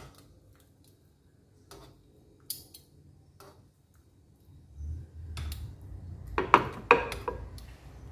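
Kitchen tongs clicking and clacking against a pan and plate while blanched instant noodles and cabbage are lifted out of the water. A few light clicks come first, then a cluster of louder clacks in the second half over a low rumble.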